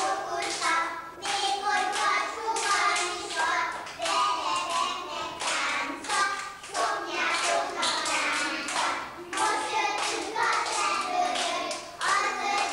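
A group of young children singing a circle-game song together, with hand-clapping through the singing.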